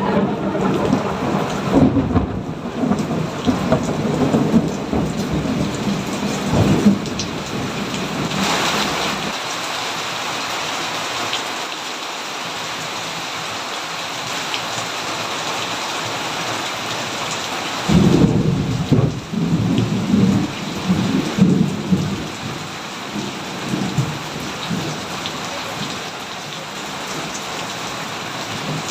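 Steady rain with thunder. A roll of thunder is already rumbling and dies away about nine seconds in. A fresh clap breaks suddenly about 18 seconds in and rolls on for several seconds before fading back to the rain.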